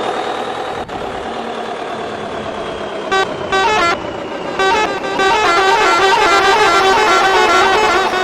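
Engine running steadily with a high whine. About three seconds in, a telolet horn, the multi-tone musical air horn of Indonesian buses and trucks, gives a few short blasts. From about five seconds in it plays a quick, continuous tune of stepping notes.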